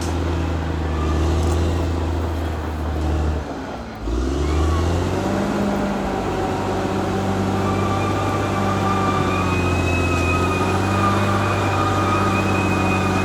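Caterpillar D6R XL bulldozer's diesel engine running under load. About four seconds in, the engine note drops briefly and climbs back up. It then runs steadily with a high whine over it.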